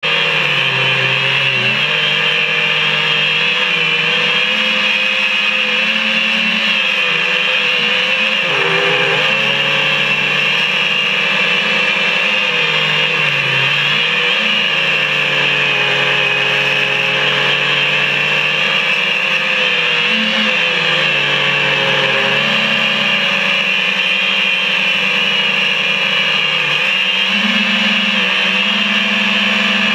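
FPV quadcopter's brushless motors and propellers whining, the pitch rising and falling with the throttle as it flies fast and low.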